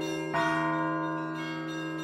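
Russian Orthodox church bells being rung. A fresh strike about a third of a second in and a lighter one later sound over the steady hum of the larger bells still ringing.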